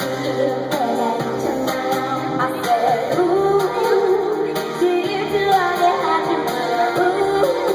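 Live pop music from a band rehearsing: a woman's sung voice over a band with guitar, amplified through the theatre's PA. The singing comes in clearly about two and a half seconds in.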